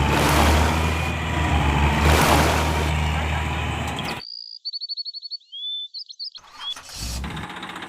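A heavy engine running steadily, with a deep hum under a loud noisy rumble. It cuts off abruptly about four seconds in. A quick run of high bird chirps follows for about two seconds, then a quieter engine rumble comes in near the end.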